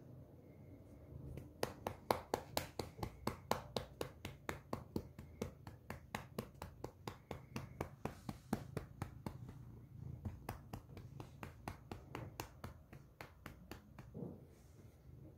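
A hand patting a cat's furry side in a quick, even rhythm, about four light pats a second. The patting starts a second or two in, is loudest at first, and stops near the end.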